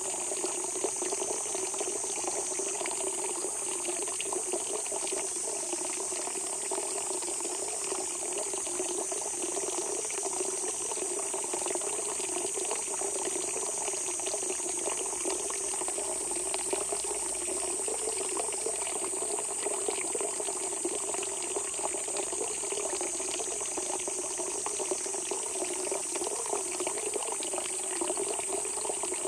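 Spring water welling up from the ground and flowing, a steady, unbroken gushing murmur.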